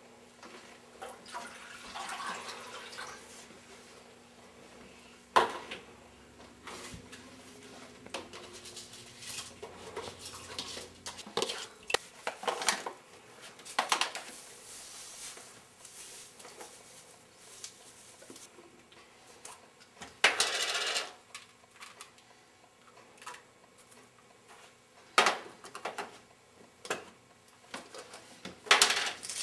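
Kitchen clatter as ingredients go into a steel pot of milk on the stove: scattered clinks and knocks of jars, containers and the metal pot. About two-thirds through, something is poured or shaken in for about a second.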